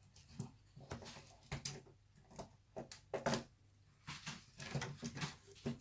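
Irregular clicks and light knocks of laptop parts and tools being handled during disassembly, a dozen or so short sharp sounds spread across a few seconds.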